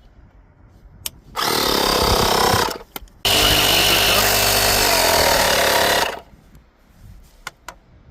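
Portable 12 V electric tire inflator switched on: the small compressor runs loudly for about a second and stops, then runs again for about three seconds and cuts off, with switch clicks around it.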